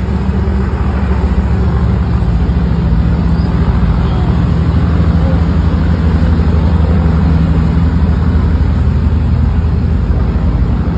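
Motorboat engine running at speed, a steady low drone that swells a little as the boat circles.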